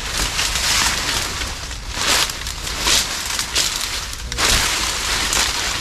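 Leaves and brush rustling and crackling as someone pushes through them, swelling in irregular surges over a steady low rumble.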